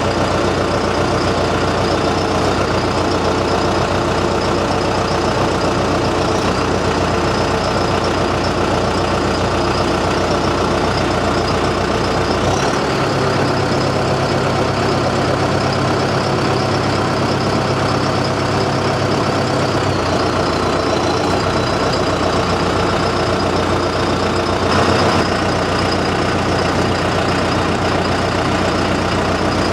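John Deere 6115D tractor's diesel engine running steadily. For several seconds midway the low engine note shifts and a faint high whine joins it.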